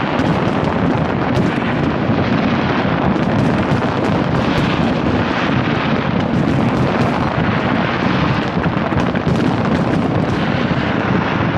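Large fireworks display: a dense, continuous barrage of booming bursts and sharp crackles running together without a break.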